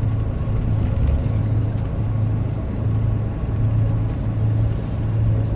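Steady low engine drone and road rumble heard from inside a moving road vehicle cruising at an even speed.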